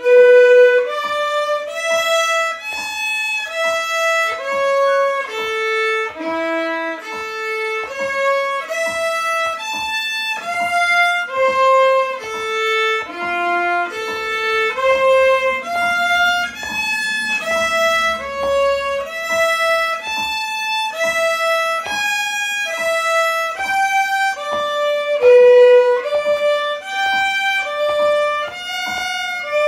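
A solo violin, bowed, playing a melody of separate notes at a steady pace of about two a second, with no accompaniment.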